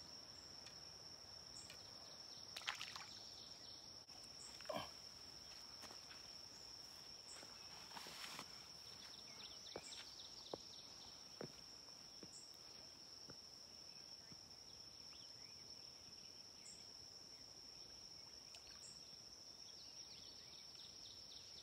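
Near silence with the steady high-pitched trill of crickets and a few faint scattered clicks.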